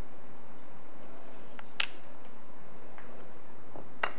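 Small metal parts of a Daiwa Steez SV TW 2024 baitcasting reel clicking as they are handled during disassembly: two sharp clicks about two seconds apart and a few fainter ticks, over a steady faint hiss.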